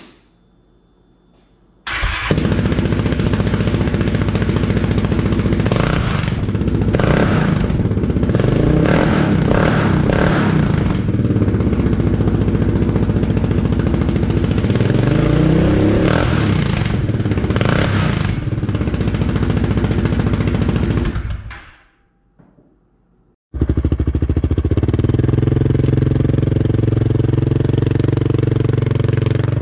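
Yamaha Kodiak 700 ATV's single-cylinder engine running through an RJWC Mud Edition slip-on exhaust, coming in suddenly about two seconds in and revved in several quick blips. It stops briefly past the middle, then runs again steadily, with fueling that still needs adjustment for the new pipe.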